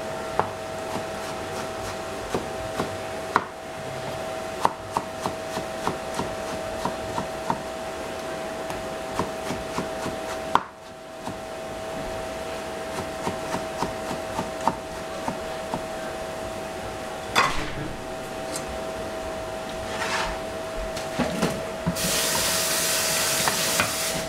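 Kitchen utensils knocking and scraping on wood in light, irregular strokes, over a steady hum. A burst of hiss starts near the end.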